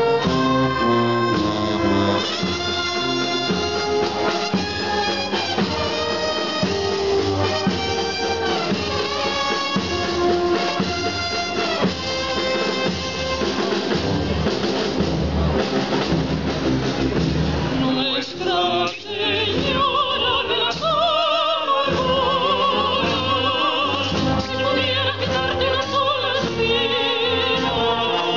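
Brass band playing a slow, solemn procession piece in sustained chords; about two-thirds of the way through, an operatic singing voice with strong vibrato enters over the accompaniment.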